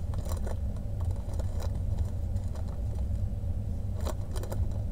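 Small plastic zip-lock bags of diamond painting drills crinkling and rattling as they are handled, in a few short scattered crackles over a steady low background rumble.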